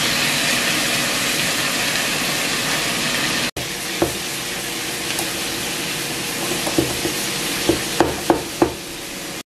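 Shredded cabbage and carrot sizzling in a hot coated wok, with a steady hiss. In the second half a spatula stirs the vegetables, knocking against the pan a few times.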